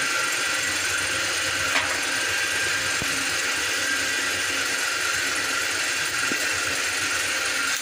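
A steady hiss with a faint mechanical hum, and a couple of small pops, while a pot of beef nihari boils hard.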